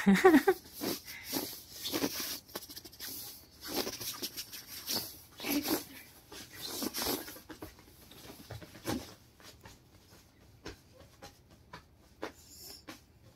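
Kittens making short, irregular cat sounds among scratchy rustles of a bed comforter as a hand plays with them, growing fainter in the second half.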